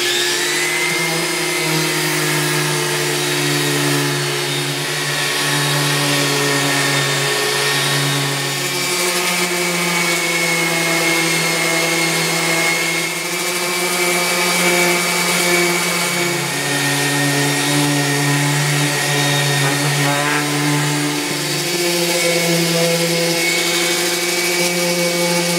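DeWalt random orbital sander spinning up and running, sanding teak stair treads and sideboards. Its steady whirring hum drops and rises in pitch a few times as it is pressed onto and eased off the wood.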